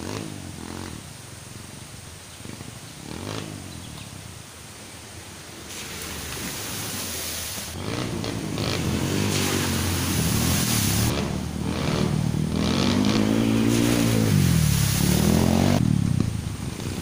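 Motorcycle engines revving up and down as the bikes approach, faint at first and growing steadily louder over the second half.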